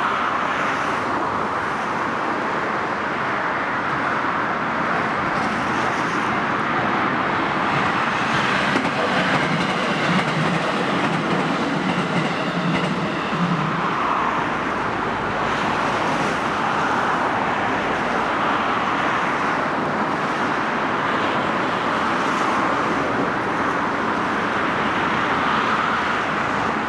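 Train passing over a level crossing with continuous rolling and rushing noise. About ten seconds in there is a short run of rhythmic low wheel clatter.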